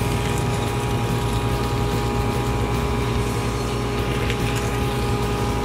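Motor of an automatic sausage stuffer running with a steady hum of several held tones while it pushes meat into the casing.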